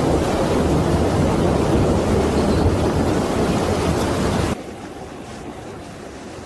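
Loud, steady rushing of floodwater. It cuts off abruptly about four and a half seconds in, giving way to a quieter rushing noise.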